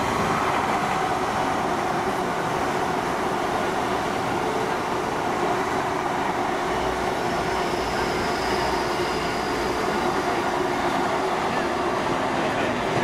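A train running past on the line, a steady rushing rumble of wheels and engine that holds evenly throughout.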